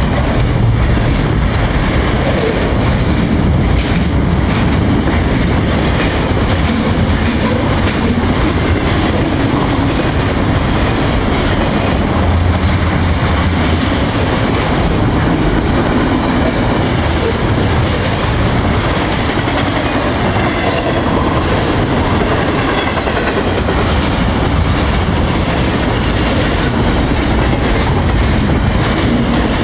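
Norfolk Southern double-stack container freight train rolling by close up: a loud, steady noise of steel wheels on rails, with many short knocks from the wheels going over the rail joints.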